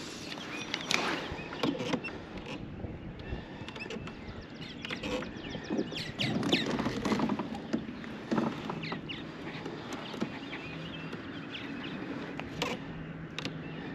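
Scattered light clicks, knocks and scrapes of fishing gear being handled aboard a plastic fishing kayak, with a low steady hum coming in during the second half.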